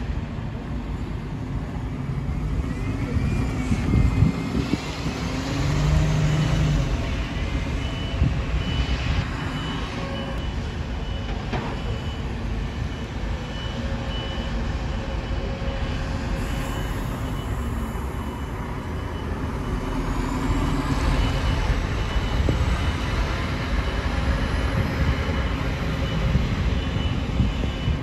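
Single-decker buses pulling away and manoeuvring, engines running, with a whine rising briefly near the start. For a few seconds midway a reversing alarm sends out a steady run of high beeps.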